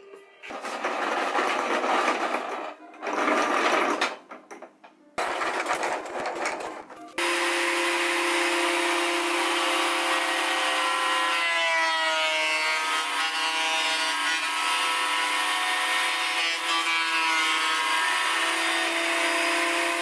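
Three short spells of power-tool noise, then from about seven seconds in a Ryobi benchtop thickness planer running steadily, with a held motor tone, as it planes a hardwood board.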